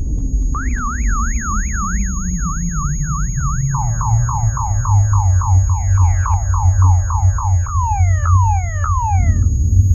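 Car alarm cycling through its tones: a rising-and-falling whoop about three times a second, then quick falling sweeps, then slower falling sweeps, cutting off shortly before the end. A loud, deep, steady rumble runs underneath.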